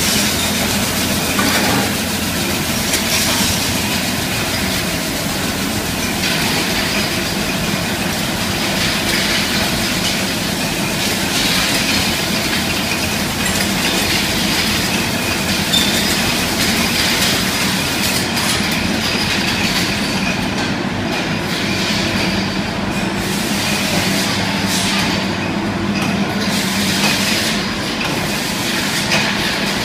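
Glass-bottle wine filling and capping machine running: a steady mechanical clatter and hum from the rotary filler, capper and bottle conveyor, with scattered clicks throughout.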